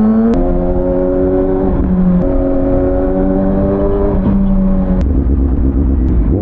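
Kawasaki ZX-6R inline-four sport bike engine under way, its revs changing sharply just after the start, then holding fairly steady with a few small pitch shifts, and dropping about five seconds in.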